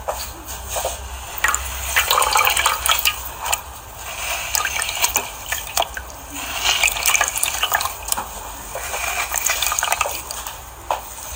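Slime being squeezed and worked by hand, making wet squelching with many small crackling pops that come and go in waves.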